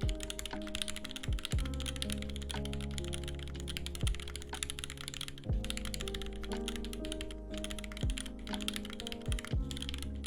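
Fast typing on an Aeboards Constellation 65 mechanical keyboard, top-mounted, with Durock linear switches lubed with 205g0 on a brass plate: a dense, continuous run of key clacks. Background music plays underneath.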